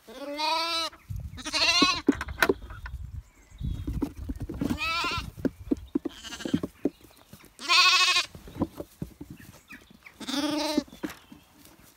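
Zwartbles lambs bleating at feeding time, five quavering calls a couple of seconds apart. Light knocks and rustling sound between the calls.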